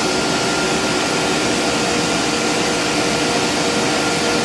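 Steady rushing machinery noise with a faint steady hum running through it: the running equipment of a whiskey distillery still house.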